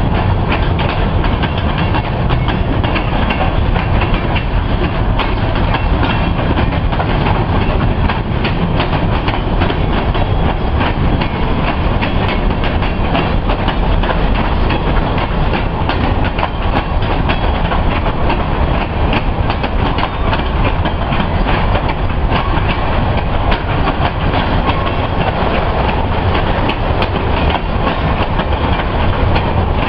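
Freight train cars rolling past at close range: a steady loud rumble of steel wheels on rail with a continuous clatter of wheel clicks.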